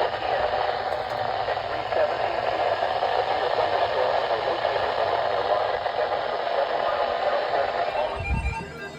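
Steady static hiss from a radio receiver, with no clear voice in it. About eight seconds in the hiss cuts off and plucked guitar music begins.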